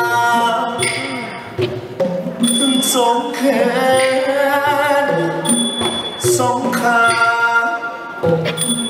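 Likay singing: a solo voice holding long, ornamented, wavering notes over a traditional Thai ensemble.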